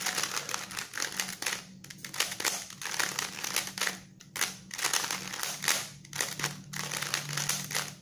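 Bandaged 3x3 Rubik's cube (CubeTwist DIY bandage kit) turned by hand in quick runs of moves during the final stage of the solve: plastic layers clicking and clattering, with brief pauses between runs.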